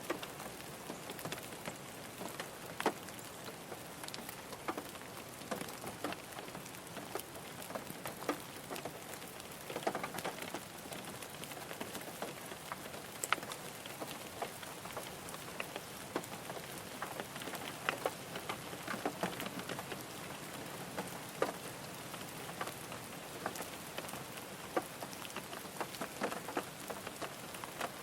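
Rain heard from inside a car, drops pattering on the roof and windows as a steady hiss with many separate sharp drop ticks of varying loudness.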